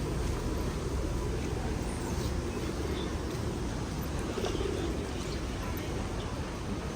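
Pigeons cooing over a steady low rumble, with a few faint short chirps.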